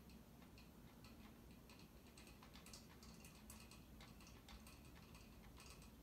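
Faint running of a NuTone Verandah II ceiling fan's spinner motor on medium speed: a low steady hum with light, irregular ticking and clicking, a little bit of noise the owner puts down to worn, poor-quality blade grommets.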